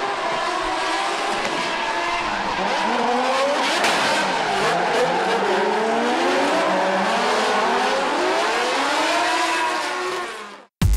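Two drift cars sliding side by side, engines revving up and down with the throttle over a steady hiss and squeal of spinning, smoking rear tyres. One is a BMW E92 drift car with a V10 engine. The sound cuts off just before the end.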